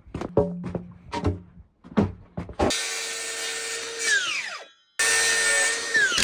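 A few knocks, then a small power tool runs twice for a second or two, its pitch falling as it winds down each time.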